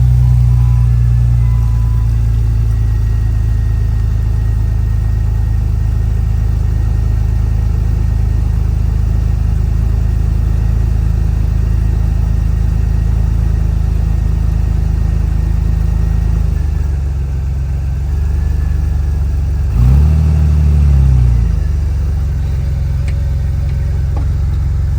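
Jeep engine idling steadily, with a short rev about twenty seconds in that rises and falls. A repeating beeping tone sounds in the first couple of seconds.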